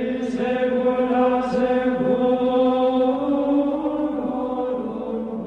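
Background music: a chant-like vocal drone with voices holding long, steady notes.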